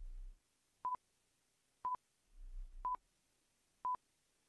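Countdown timer sound effect: short, single-pitch electronic beeps, one each second, ticking off the seconds of a quiz countdown.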